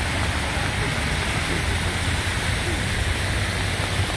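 Steady hiss of heavy rain falling, with water running across a flooded road.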